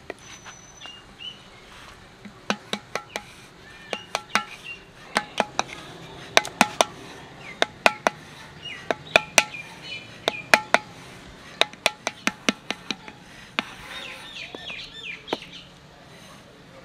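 A flat paddle beating the wall of a round earthenware clay pot to shape it, sharp knocks coming in quick irregular runs, each ringing briefly. Birds chirp faintly near the end.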